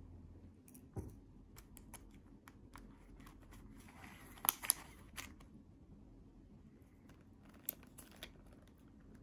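Scattered light clicks and taps with a brief soft rustle, and a few sharper clicks, twice close together in the middle and once more later.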